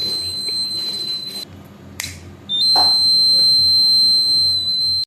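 Buzzer of a home-made transistor fire alarm sounding one steady high-pitched tone, set off by a flame held at its IR receiver. The tone breaks off about a second and a half in, a sharp click follows, and just before the three-second mark the buzzer sounds again, louder.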